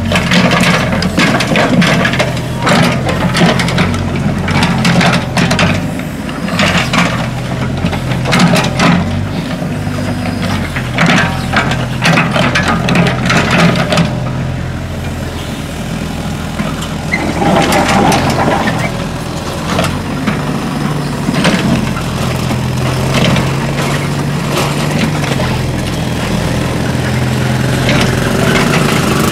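Mini excavator's diesel engine running steadily, with frequent metal knocks and clanks from the bucket and tracks working soil through the first half. Near the end a motorcycle cargo cart's engine comes in close.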